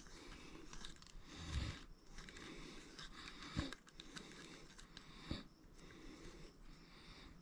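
Faint handling noises as a heavy bobblehead figure is twisted and screwed onto its base by hand, with three soft knocks.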